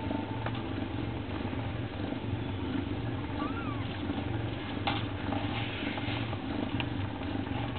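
Mother cat purring steadily, a low fluttering rumble, while her kittens nurse. A brief faint squeak comes about three and a half seconds in, and a single click just before five seconds.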